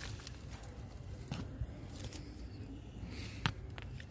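Soft rustling and scraping of a hand working in potting soil and onion leaves while pulling onions, with a few small clicks and one sharp tap about three and a half seconds in, over a low steady rumble.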